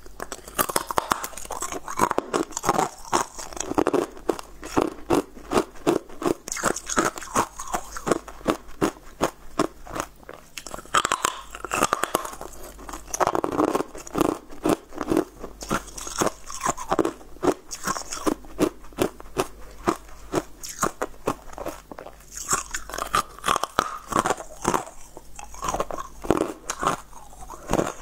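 Close-up crunching and chewing of frozen corn on the cob as kernels are bitten off, a dense run of crisp crunches with louder bites every second or so.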